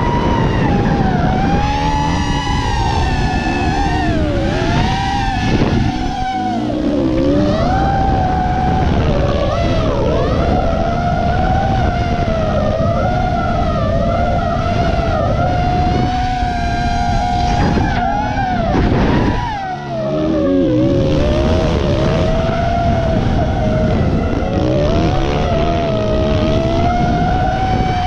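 FPV racing quadcopter's motors and propellers whining over wind rush, the pitch rising and falling constantly with throttle. About two-thirds of the way in, the whine sweeps down and the sound briefly dips before it picks up again.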